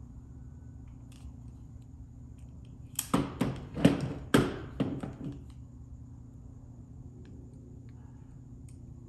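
Hand tools working a wire terminal for a relay connector: a quick run of about seven sharp clicks and snaps lasting some two and a half seconds, starting about three seconds in, over a steady low hum.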